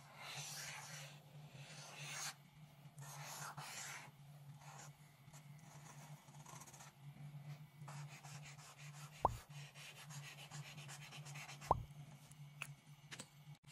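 Marker tip scratching across paper in a series of drawn strokes, faint, over a steady low hum. Two sharp clicks stand out, about two and a half seconds apart in the second half.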